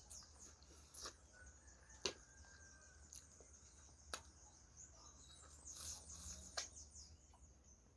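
Near silence with a few faint, sharp mouth clicks and soft chewing noises from a person eating.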